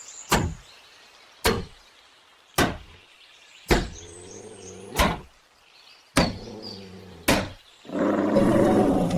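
Seven sharp knocks at an even pace, about one a second, followed near the end by a loud, steady rushing noise.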